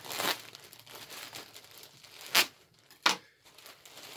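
Clear plastic packaging bag crinkling as it is handled and pulled open, with three short, sharp, louder crackles: one right at the start, one about two and a half seconds in, and one about three seconds in.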